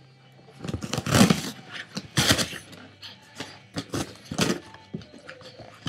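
Boston Terrier tearing and thrashing a cardboard box: cardboard ripping and crumpling in irregular bursts, the loudest about a second and two seconds in.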